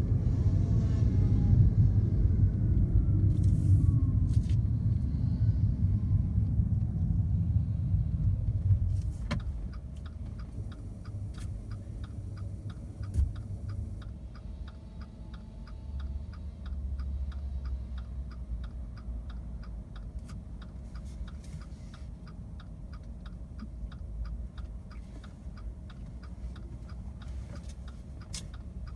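Road and tyre rumble inside the cabin of a Fiat 500e electric car, which drops away about nine seconds in as the car slows. From then on a steady, fast ticking runs over a faint steady hum, typical of a turn-signal indicator clicking.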